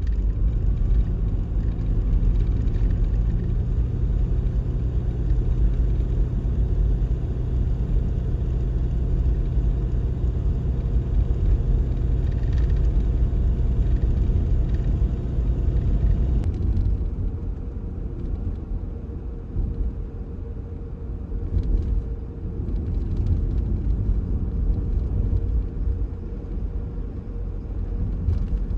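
Steady low rumble of a vehicle on the move, road and engine noise, with a faint engine hum in the first half. The sound shifts abruptly about halfway through and carries on a little quieter.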